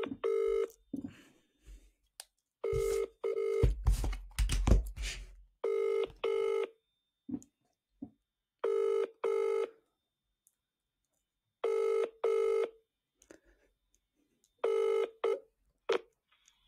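British telephone ringback tone: the double ring of an outgoing call, two short tones close together repeating about every three seconds, six times, while the called mobile line rings unanswered. A brief clatter of knocks comes about four seconds in.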